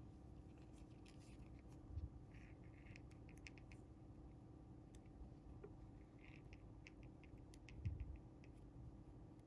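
Near silence with faint ticks and rustles from fingers handling monofilament fishing line while tying a knot, and a soft bump twice.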